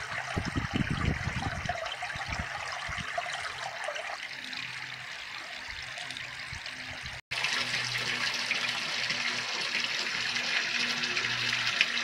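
Spring water pouring from a wooden spout and splashing onto water and stones, a steady rushing. About seven seconds in it breaks off for an instant and comes back louder and hissier.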